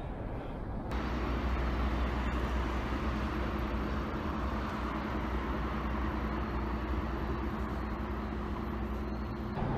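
Steady noise of road traffic on an elevated expressway, a continuous hum with no single vehicle standing out.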